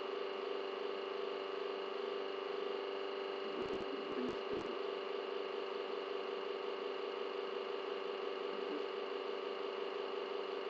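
Steady background hum with several fixed tones over a hiss, with a few faint clicks about four seconds in.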